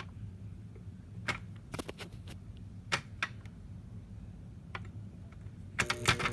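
Scattered light clicks from a Lasko Power Plus box fan being handled over a low hum, then a quick run of clicks near the end as its switch is worked and the motor starts to hum.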